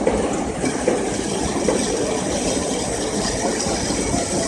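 CH-300S CNC horizontal metal band saw running: a steady mechanical noise with a thin high whine, broken by irregular rattles and knocks.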